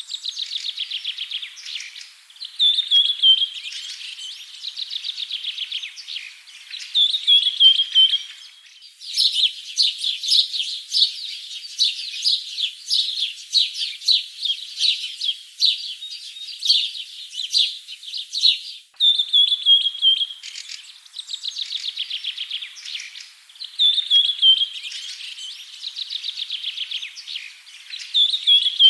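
Songbirds singing. One song repeats about every four seconds: a short falling whistle, then a fast trill. In the middle there is a denser stretch of many quick overlapping chirps that starts and ends abruptly.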